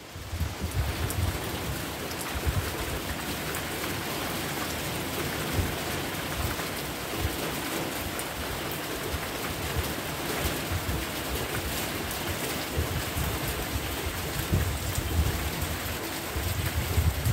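Steady rain falling, a dense hiss full of fine drop ticks, with irregular low buffeting from wind on the microphone.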